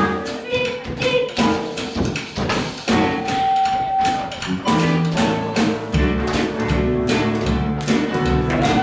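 Live band playing an instrumental passage of a swing-style song: a drum kit keeps a steady beat of sharp hits under electric guitar and keyboard, and a low bass line comes in about six seconds in.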